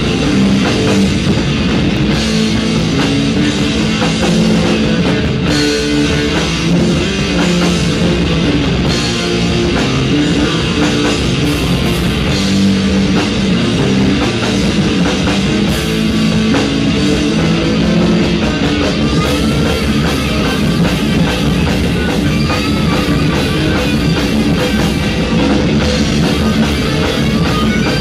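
Metal band playing live and loud: electric guitars and a drum kit.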